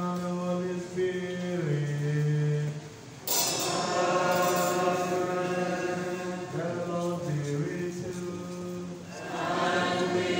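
A man chanting held notes through a microphone, then about three seconds in a choir comes in with a fuller, louder sung phrase. The singing eases and swells again near the end.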